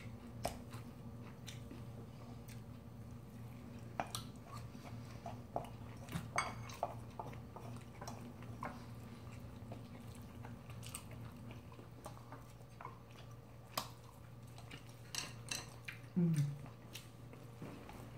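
Two people eating bibimbap: soft chewing, with scattered light clicks of a spoon and chopsticks against a stainless-steel mixing bowl and ceramic dishes. A low steady hum runs underneath, and there is a brief low vocal sound near the end.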